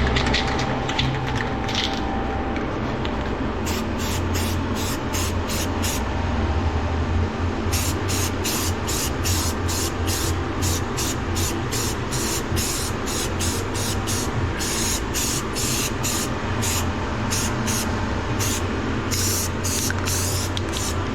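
Universal bonding primer being sprayed onto galvanized sheet metal, hissing in short, rapid bursts of about three a second that begin a few seconds in, over a steady low hum.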